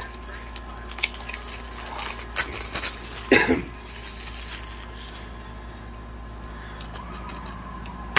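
Plastic DVD cases being handled and set down: scattered clicks and knocks, the loudest clatter a little over three seconds in, over a steady low hum.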